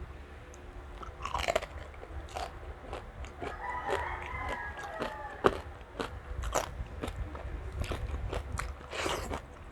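Crunching and chewing of crispy deep-fried pork belly (lechon kawali), bite after bite, with many short sharp crunches.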